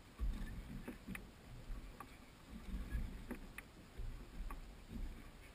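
Small waves lapping and slapping against the hull of a drifting center-console fishing boat, in irregular low splashes with a few light clicks and knocks.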